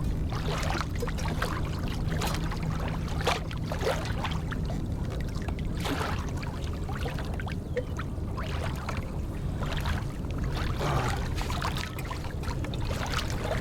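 Water splashing and lapping around a fishing kayak in irregular small bursts, over a steady low background rumble.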